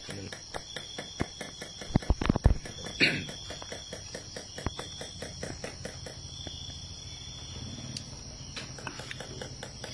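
Steady high insect trilling with a regular ticking about four times a second. A few loud low knocks come about two seconds in.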